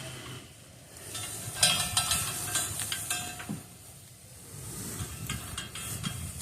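Homemade angle-iron welding cart being pushed and spun around on its wheels, with a low rolling rumble and scattered light metal rattles and clicks that come and go.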